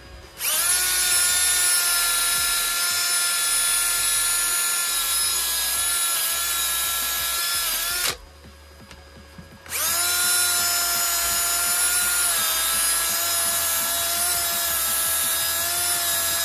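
Cordless rotary power tool running at speed against the exhaust manifold's flange, cleaning the old gasket face so the new gasket will seal. It runs in two long bursts of about eight and seven seconds with a short pause between, a steady whine that dips slightly in pitch now and then.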